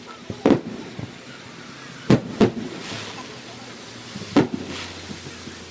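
Aerial firework shells bursting at a distance in a series of sharp booms: a double bang about half a second in, a loud pair just after two seconds, and another bang just over four seconds in.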